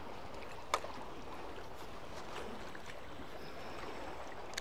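Steady seaside background of wind and water washing against concrete tetrapods, with a sharp click about three-quarters of a second in and another near the end.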